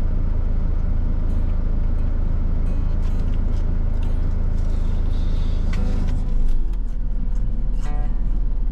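Truck engine idling in the cab: a steady low hum that drops to a lower pitch about six seconds in. A few light clicks of chopsticks on a plastic bento tray sound over it.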